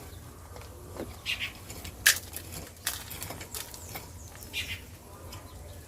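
Hands digging and scraping through gritty compost and sand, giving scattered rustles and scratches with a sharper click about two seconds in.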